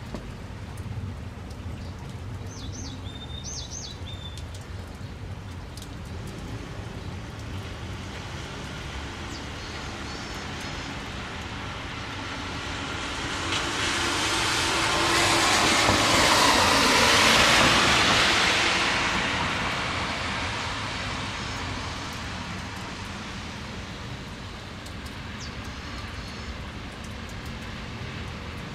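A vehicle passing on a wet road: tyre hiss swells to a peak about halfway through and fades away, over a steady low background hiss and rumble.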